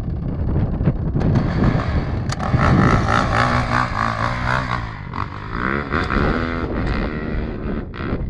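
A Yamaha YZ450F dirt bike's single-cylinder four-stroke engine being ridden hard, the pitch rising and falling as the throttle is worked.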